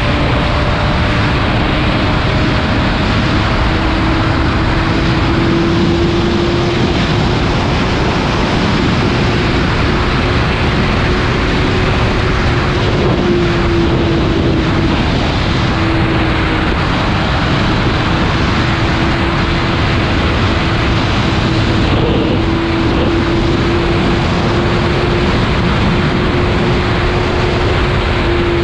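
Sport motorcycle riding at a steady cruise: one engine note holding nearly constant pitch, only drifting slightly up and down, under a loud, even rush of wind noise.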